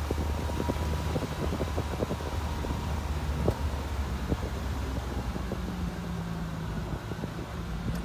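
A vehicle driving slowly on a narrow, rough road: a steady low engine drone under road noise, with many small knocks and rattles from the bumps.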